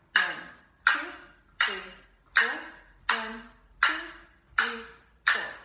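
Finger cymbals (zils) struck in an even quarter-note beat, about one strike every three-quarters of a second, each strike ringing brightly and fading before the next.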